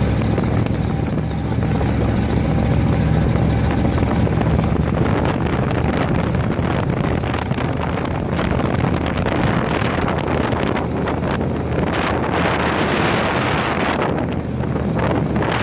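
Dune buggy engine running as it drives over sand, with wind buffeting the microphone. The engine's steady drone is plainest in the first few seconds; from about six seconds in, rough wind rumble grows and dominates.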